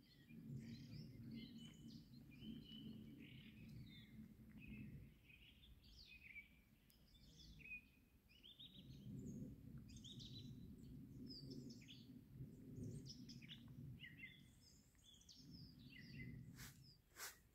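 Faint songbirds chirping and trilling in many short phrases over a low, unsteady background rumble, with two sharp clicks near the end.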